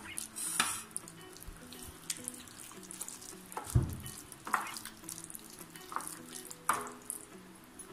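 A hand squishing raw chicken pieces through a wet egg-and-curd spice marinade in a bowl: irregular wet squelches and slaps, with a dull knock a little before four seconds in.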